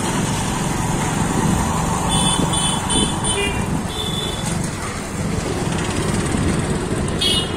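Motorcycle riding through busy street traffic: steady engine and road noise, with a few short, high-pitched beeps about two to three seconds in.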